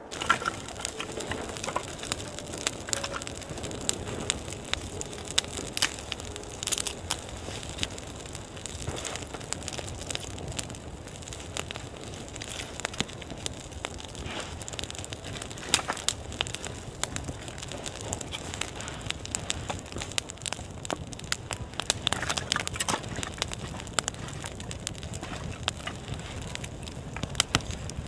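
Irregular crackling and snapping over a steady rustling hiss.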